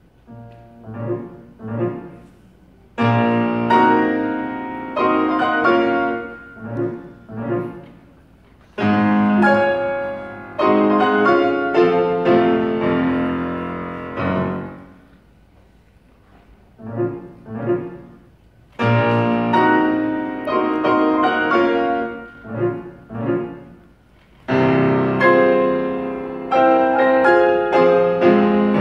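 Solo Yamaha grand piano played in a classical style: soft scattered notes, then loud full chords that come in suddenly, in phrases with short pauses between. The same pattern of soft opening and loud chords comes round again about halfway through.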